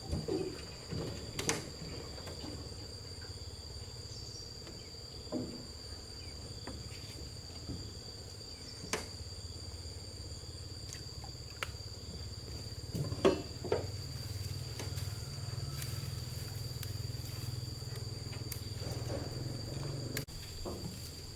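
Insects chirring in a steady chorus, two high unbroken tones, over a low rumble, with a few scattered knocks and clatters, the loudest about thirteen seconds in.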